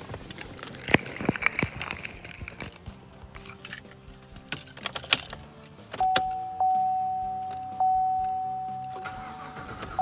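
Keys jangling and clicking at the ignition of a 2014 Chevrolet Silverado. About six seconds in, the dashboard warning chime comes on as the ignition switches on: a single clear tone sounding three times, each ding fading slowly.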